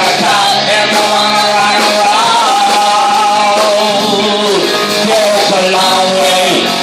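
Live rock band playing a cover song loudly, with singing.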